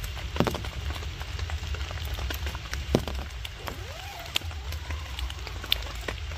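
Light rain: scattered drops tapping on a tarp shelter over a low steady rumble, with two sharper knocks, one about half a second in and one about three seconds in.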